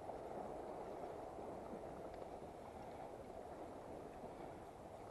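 Faint, steady wash of sea water along a stone jetty, with no distinct events.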